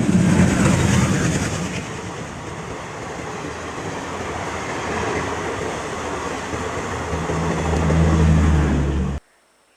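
Diesel-hauled passenger train running past, with loud, steady rumble and rail noise. Near the end the EMD diesel locomotive's deep engine drone grows louder, then the sound cuts off suddenly.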